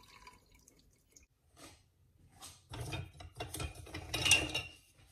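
Cooked elderberry juice straining through cheesecloth in a colander, splashing and dripping in irregular short bursts; the loudest burst comes a little past four seconds in.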